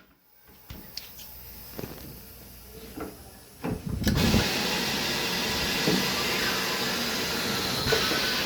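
Tire changing machine's pneumatic bead breaker pressing the last section of a stuck bead on a heavy wheel. A faint low hum, then about three and a half seconds in a thump and a steady loud rush of air that keeps going.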